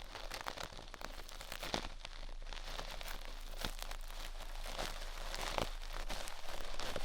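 Close, crackly scratching and rustling of ear-cleaning tools working inside the ear of a binaural microphone, made up of dense little crackles with a few sharper clicks.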